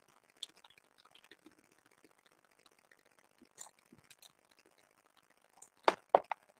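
Quiet room with scattered faint clicks and taps, then a quick cluster of three sharper, louder clicks about six seconds in.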